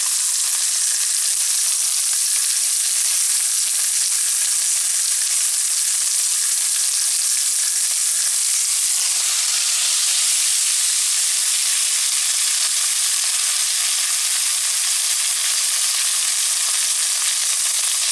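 Strip of scored pork belly sizzling steadily as it fries in its own rendered fat in a frying pan.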